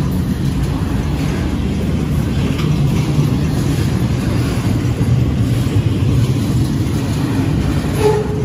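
Double-stack intermodal freight cars rolling past on the rails: a steady, loud low rumble of wheels and cars, with a short squeal about eight seconds in.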